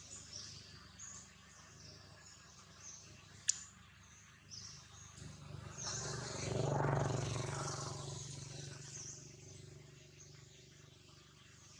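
Outdoor ambience with small birds chirping and one sharp click a few seconds in. Then a low steady hum with rushing noise swells over a couple of seconds and fades slowly, like a motor vehicle passing.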